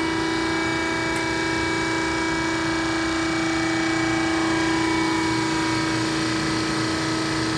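Parker hydraulic hose crimper running under load: a steady hum with one strong tone as its dies close down on a hose fitting to crimp it.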